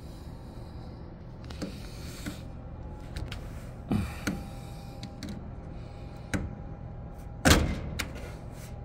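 Hands handling wires and small tools inside an opened dryer cabinet: scattered light clicks, rustles and soft knocks, with a louder rustling burst about seven and a half seconds in, over a steady low hum.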